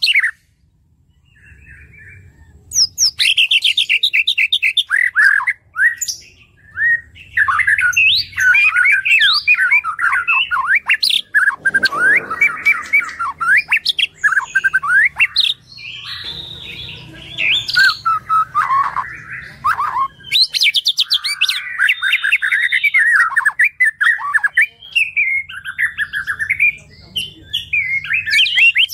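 White-rumped shama (murai batu) singing a long, varied song of rapid whistled phrases and trills, with a few rougher notes mixed in. It starts after a short pause about three seconds in.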